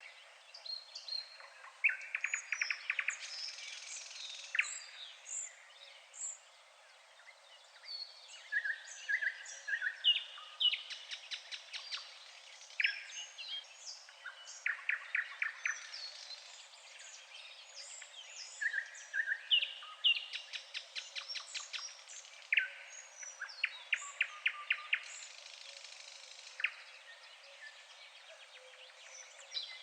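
Songbirds singing: repeated fast trills and short high chirps.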